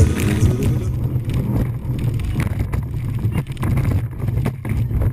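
Boat motor running with a steady low drone, with wind buffeting the microphone and many scattered sharp clicks over it.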